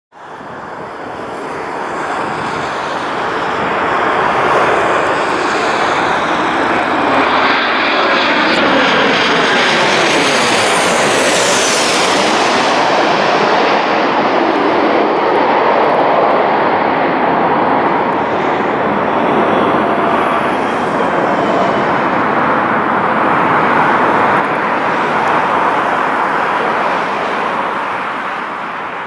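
A Boeing 737 airliner's CFM56 turbofan jet engines pass low overhead on final approach. The engine noise builds up, and about ten seconds in a high whine drops sharply in pitch as the jet goes over. It stays loud, then fades near the end.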